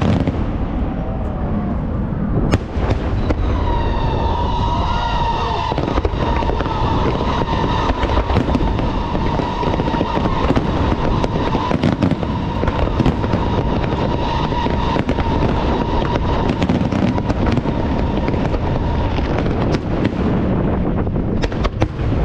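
Aerial fireworks display: a dense, continuous run of bangs and crackling bursts. A steady high whistle starts about three or four seconds in and fades out a few seconds before the end.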